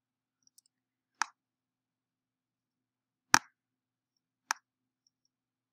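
Three sharp computer mouse clicks, the middle one loudest, as transform handles are dragged.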